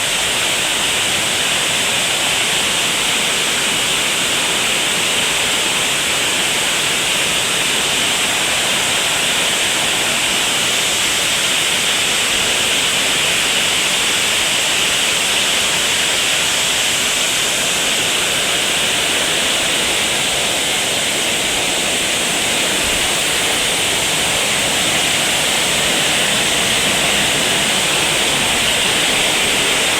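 Heavy rain falling steadily, an even hiss with no thunder or beeps standing out.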